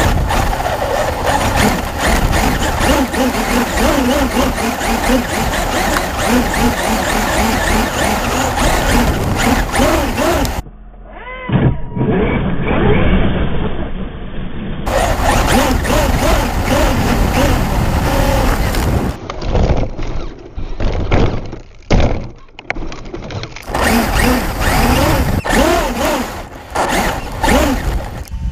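Traxxas UDR RC truck driven hard over dirt, heard from a camera mounted on its chassis: the electric motor whines up and down in pitch over a constant rush of wind, tyres and spraying dirt. Knocks and thumps from bumps and landings come in a cluster past the middle.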